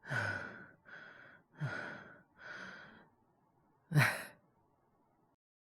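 A man's heavy, laboured breathing, acted as a feverish man with a cold: voiced sighs with a low falling pitch alternate with breaths in, about every second and a half. About four seconds in comes a single sharp cough, the loudest sound.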